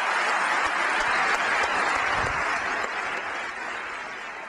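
Large audience applauding, steady at first and then dying away over the last second or so.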